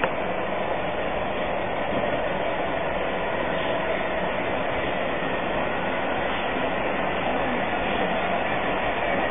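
Historic Abt rack steam locomotive and its carriages rolling slowly into the station: a steady running noise with no distinct beat.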